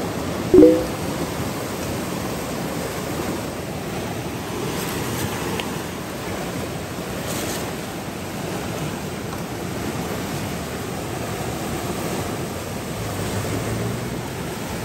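Steady rushing of a river, an even wash of water noise throughout. A brief, loud pitched sound comes about half a second in.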